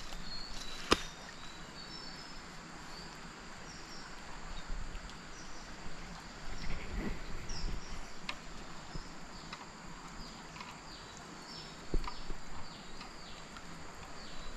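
Steady rush of a flowing river, with many short, high chirps over it, a sharp click about a second in and a softer knock near the end.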